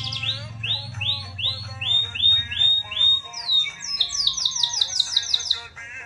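Domestic canary singing: a run of rising swooping notes, about two a second, then a fast rolling trill near the end, with quieter background music underneath.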